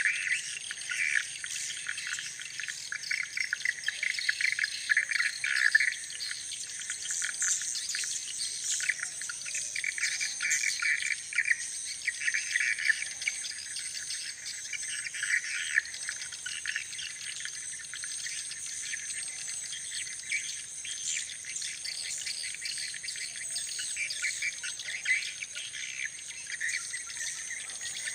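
Small songbird chirping in irregular bursts over a steady, high-pitched insect-like trill.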